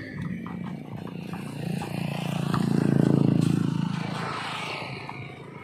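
A motor vehicle passing on the road, its engine growing louder to a peak about three seconds in and then fading away.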